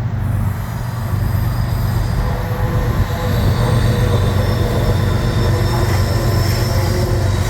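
Train passing close by: a loud, steady, noisy rumble of rolling cars with thin high wheel squeals over it, growing louder about three seconds in.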